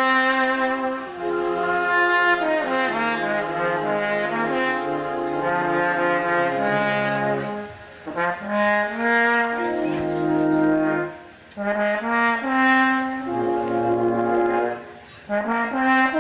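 Brass band playing held, chordal phrases with trombones and cornets, pausing briefly between phrases.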